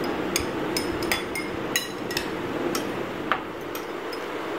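A metal spoon clinking and tapping against glass tumblers while layers of dessert are spooned in: about ten light, unevenly spaced clinks over a faint steady hum.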